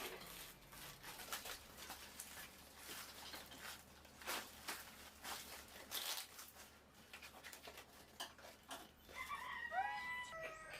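Rustling and clicking of packaging and kitchen items being handled, with a few short rising-and-falling animal calls near the end.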